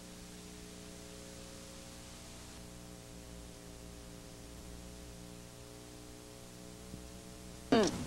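Steady mains hum and hiss from a blank stretch of videotape between recordings. Near the end a short, loud burst of a voice cuts in as the next recording starts.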